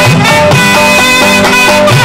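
Two nadhaswarams playing a Tamil film-song melody in held notes that step from pitch to pitch, over an ensemble of electric bass guitar, keyboard and thavil with tabla, whose low notes swoop up and down beneath the melody.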